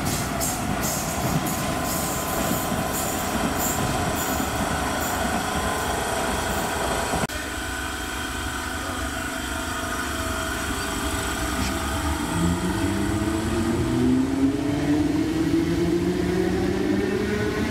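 Electric trains at a station: steady running noise with quick clicks from the wheels. About seven seconds in, the sound changes abruptly, and a Class 8100 DART electric multiple unit pulls away, its traction motors whining in several tones that rise in pitch as it gathers speed.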